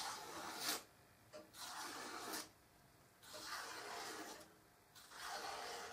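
A sharp bushcraft knife blade slicing through a sheet of paper in four strokes of about a second each, a dry rasping hiss on every cut: a paper-cutting test of the edge.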